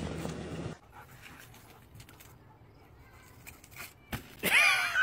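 Dog vocalizing: a short, loud, high whine with a sliding pitch near the end, after a stretch of faint background noise.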